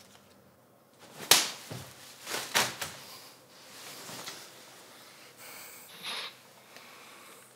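Sharp hits: one loud crack about a second in, then a quick cluster of three more, and a softer swish and knock near the end.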